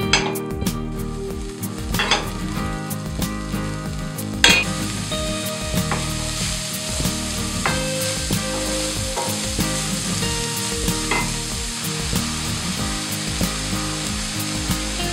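Beef mince and chopped onion sizzling as they fry in a stainless steel pan, stirred with a wooden spoon that knocks against the pan now and then, the loudest knock about four seconds in.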